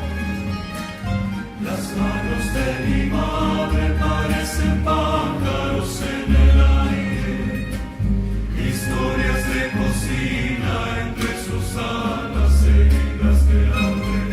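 Film soundtrack music: a choir singing over instrumental accompaniment with a bass line.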